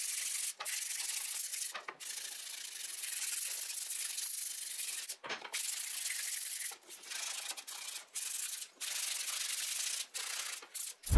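Hand-sanding the edge of a thin wooden strip with sandpaper: a steady rasping hiss from long strokes, broken by short pauses every second or so.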